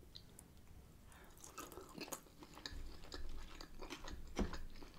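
Close-miked chewing of boiled shrimp: irregular wet mouth clicks and smacks, with a louder bite or smack about four and a half seconds in.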